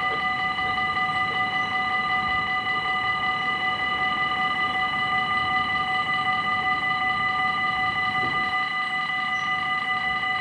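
Level-crossing warning bell ringing without pause in a clear metallic tone, sounding while the red lights flash and the barriers are down, the signal that a train is approaching.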